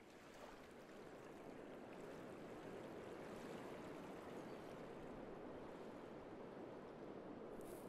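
Faint, steady rushing of running water, swelling slightly over the first couple of seconds.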